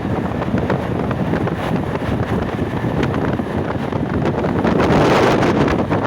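Wind buffeting the microphone over the steady running noise of a moving train, swelling louder about five seconds in.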